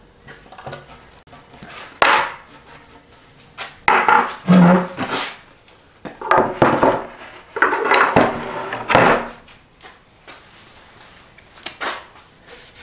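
A sheet of 3/4-inch plywood being shifted and laid flat on a wooden workbench: a series of loud scrapes and knocks of wood on wood, with light metal clinks.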